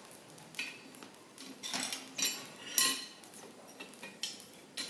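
Steel blacksmith tongs being picked up and handled: several light metal clinks and knocks at irregular intervals.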